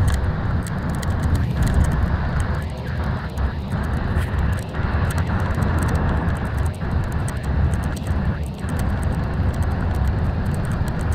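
Steady road noise inside a moving coach: a continuous low rumble of engine and tyres at speed, with faint scattered clicks over it.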